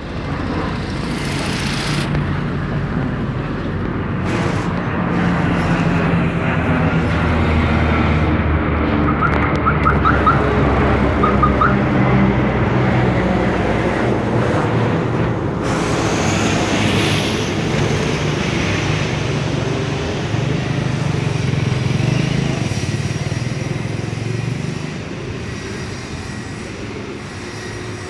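Propeller-driven military transport plane flying low overhead: a steady, loud drone with a low hum that swells to its loudest about ten seconds in and fades over the last few seconds.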